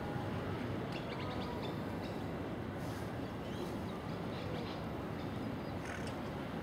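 Steady outdoor background rumble with a few faint, short bird chirps scattered through it.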